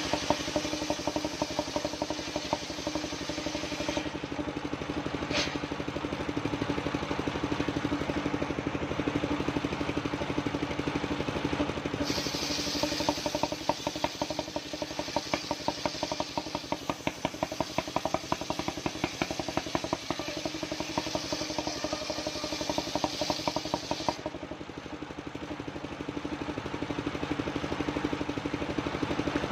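Engine of a mobile circular sawmill running steadily with an even, rapid pulse, while the saw works through old coconut-palm timber. A higher hiss over the engine cuts in and out abruptly several times.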